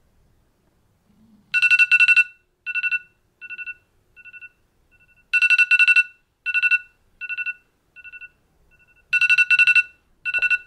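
iPhone timer alarm going off: rapid two-pitch beeping that starts loud and fades away in shorter, quieter repeats, the cycle coming round about every four seconds, three times. It cuts off near the end as the timer is stopped.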